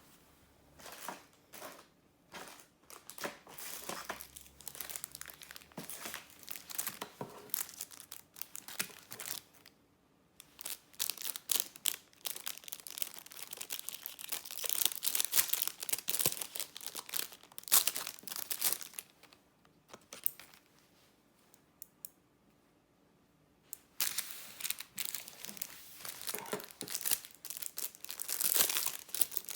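Packaging being crinkled and torn open by hand in irregular bursts, with a pause of a few seconds about two-thirds of the way through.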